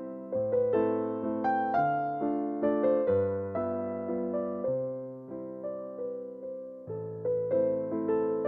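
Background music: a gentle electric piano melody, notes struck at a slow, even pace and left to fade.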